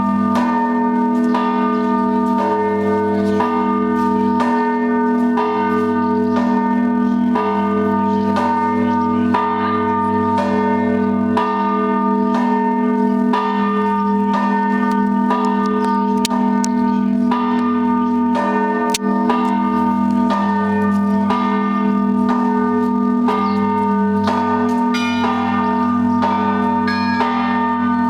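Russian Orthodox monastery bells ringing a continuous peal (zvon): the smaller bells are struck in a quick, steady pattern, about two strokes a second, over the lasting low hum of the larger bells. Higher, brighter bells come forward near the end.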